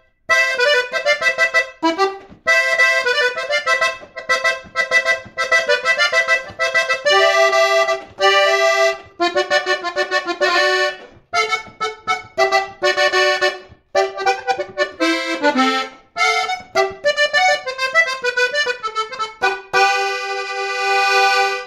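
Diatonic button accordion playing a song, the melody and chords in short rhythmic phrases with brief breaks, ending on a long held chord.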